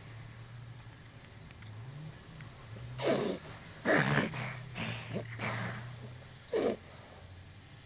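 Snoring: a quick run of short, noisy snorting breaths about three to five seconds in, then one more near the end, over a steady low hum.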